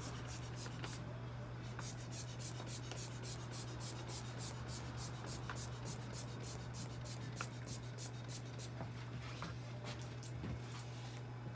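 A hand rubbing and scratching a cat's fur in quick, even strokes, about three to four a second, which break up about nine seconds in. A steady low electrical hum runs underneath.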